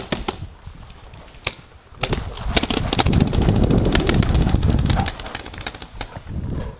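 Paintball markers firing, a string of sharp pops throughout. From about two seconds in to about five seconds, a loud rumble of wind and movement on the helmet camera as the player runs forward.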